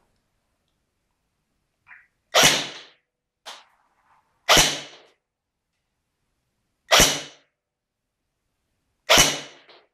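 AGM MP40 airsoft electric gun firing four single shots of 0.2 g BBs through a chronograph, about two seconds apart, each a sharp crack with a short fading tail; the chronograph reads around 335 FPS. A couple of faint clicks come before the second shot.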